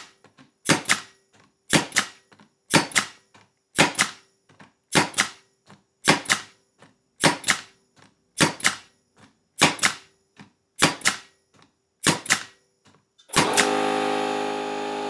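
Pneumatic brad nailer firing 1-inch brad nails into a pine board at 70 psi: about a dozen sharp shots, roughly one a second. Near the end the RIDGID Gen5X 18V brushless cordless air compressor kicks on and runs steadily as the tank pressure drops.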